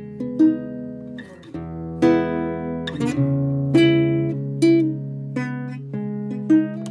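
Background music: plucked acoustic guitar notes, about one a second, each ringing and fading over held low tones.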